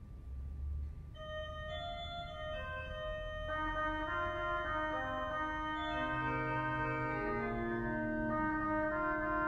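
Foley-Baker pipe organ playing slowly. A low note is held, then long sustained notes come in about a second in and pile up into a full, gradually swelling chord of many held tones.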